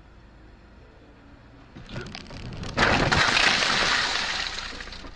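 Car crashing into a wheel loader, heard from inside the car: about three seconds in, a sudden loud crash of impact and shattering windshield glass that lasts about two seconds before fading.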